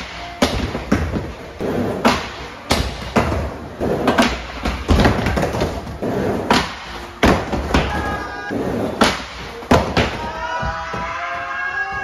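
A run of sharp thumps and knocks, irregularly spaced about half a second to a second apart, over background music that becomes clearer near the end.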